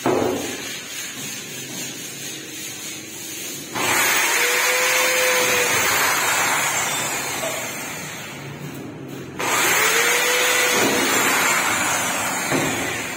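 Corded electric drill boring into galvanized steel furring channel. It runs in two long bursts of several seconds each, about four seconds in and again near ten seconds, and its motor whine rises as it spins up at the start of each.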